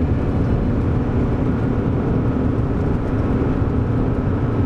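VW T4 Syncro van driving on a gravel road: a steady low rumble of engine and tyres on gravel.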